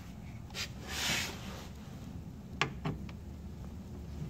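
Hand tool turning a screw on the machine's sheet-metal guarding: a short scrape about a second in and a couple of light clicks near three seconds, over a steady low hum.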